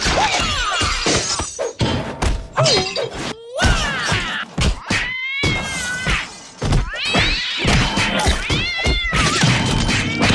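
A fast, dense string of cartoon sound effects: many sharp knocks and thuds mixed with pitched cries and whistles that slide up and down.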